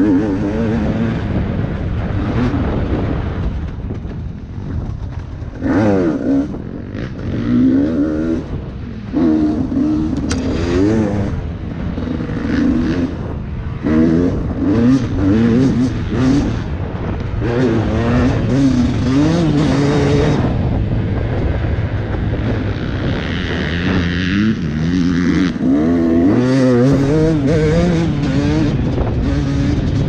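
Dirt bike engine revving hard in repeated bursts, its pitch climbing and dropping again and again as the throttle is opened and closed.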